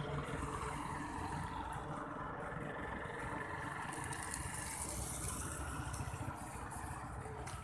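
Road traffic: a steady low rumble of engines, with a car driving past about halfway through, its engine and tyre noise swelling and then fading.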